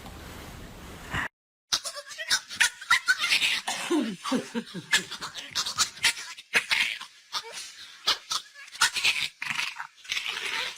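People laughing in short, repeated bursts, mixed with sharp clicks and knocks.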